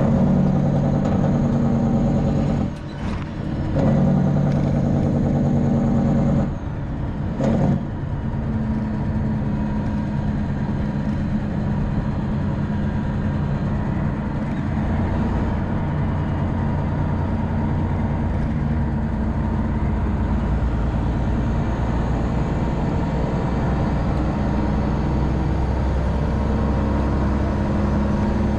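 Detroit Diesel Series 60 straight-six diesel in a Freightliner Classic XL, heard from inside the cab, pulling the truck up to speed: the engine note drops away twice in the first eight seconds as gears are changed on the 13-speed Eaton Fuller, then runs steadily under load with a deepening rumble.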